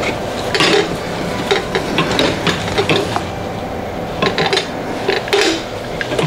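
Metal clinks, knocks and rattles from a Dillon 1100 reloading press as its toolhead is gripped and shifted on the frame, a dozen or so sharp clicks scattered through.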